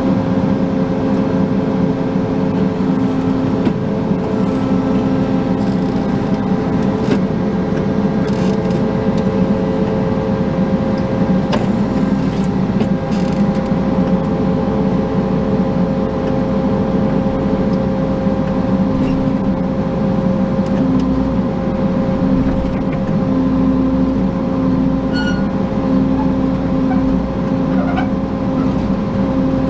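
Combine harvester engine running steadily at a constant speed while the machine travels.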